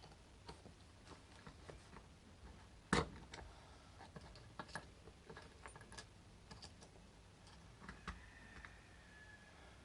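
Small metal clicks and ticks of a tool prying at the C-clip on a padlock's lock cylinder, with one sharper click about three seconds in and a faint scrape near the end.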